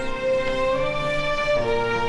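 Sad background music of slow, held string notes, moving to a new chord near the end.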